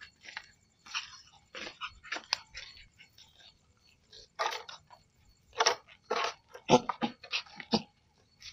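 Footsteps crunching on a gravelly dirt path at an uneven pace, with a run of louder steps in the second half.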